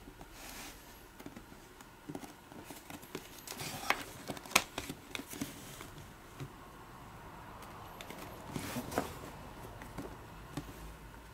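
Hands handling and turning a cardboard camera box: fingers tapping, gripping and sliding on the cardboard, with scattered clicks and short scrapes, loudest about four seconds in and again near nine seconds.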